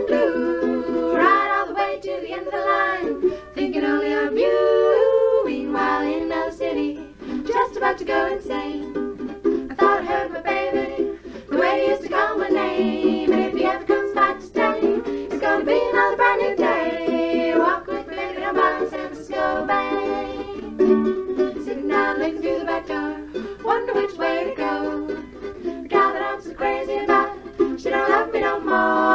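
Music playing: a melody over plucked accompaniment, continuous and steady in level.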